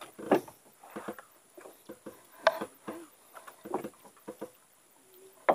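A run of irregular knocks and taps, with three sharper, louder ones among the lighter ones.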